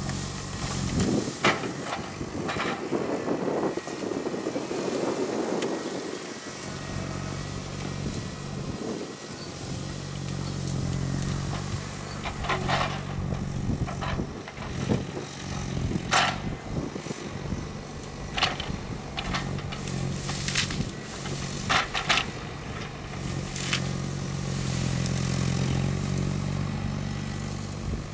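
PONSSE Wisent forwarder's diesel engine running steadily, its note swelling at times as the crane works. About a dozen sharp cracks and snaps of branches and brush being gripped and loaded by the grapple are scattered throughout.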